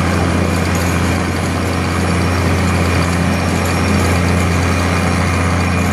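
Bruce SGV-300 hydraulic vibratory hammer vibrating a steel sheet pile into the ground: a loud, steady, low mechanical drone that holds even throughout.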